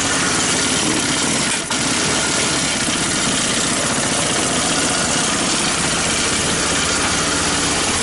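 Chinese-built ATV engine running steadily just after firing up on its newly wired CDI ignition, on its automatic choke, with a brief dip near two seconds in.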